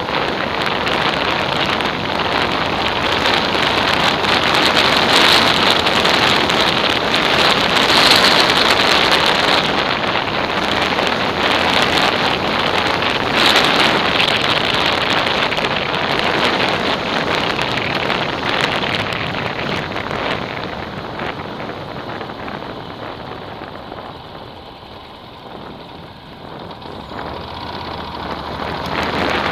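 Wind rushing over an action camera's microphone on a moving motorcycle, a dense steady noise with the ride's engine and road noise buried beneath it. It dies down for a few seconds about three-quarters through, then rises again near the end.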